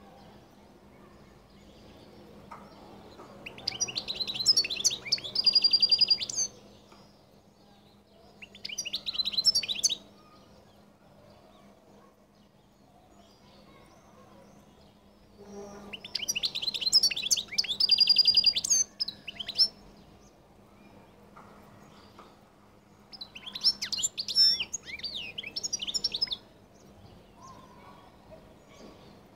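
European goldfinch singing: four bouts of rapid, high twittering song with buzzy trills, separated by pauses of a few seconds.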